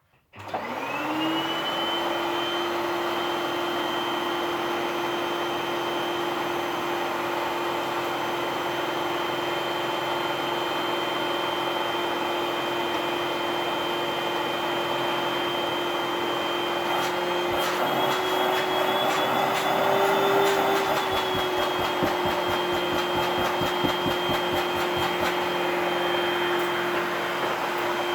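Vacuum cleaner switched on, its motor spinning up to a steady hum with a high whine. Partway through, a rapid rattle of clicks runs for several seconds, and the motor pitch rises a little for a few seconds.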